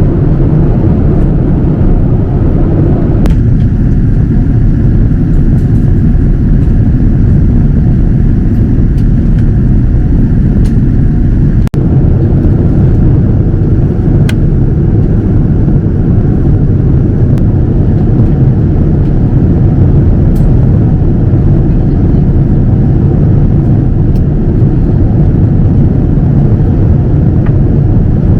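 Steady, loud rumble of a Boeing 787-9's engines and airflow heard inside the cabin. The higher hiss drops away a few seconds in, and the sound cuts out for an instant near the middle.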